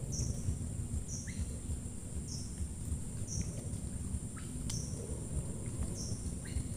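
Natural ambience with steady high-pitched insect trilling, a short high call repeating about once a second, and a few brief rising bird chirps, over a low steady rumble.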